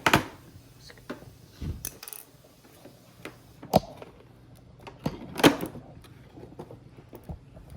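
Cardboard and plastic toy packaging being handled, giving a few sharp clicks and knocks and one dull thump. The loudest knock comes about five and a half seconds in.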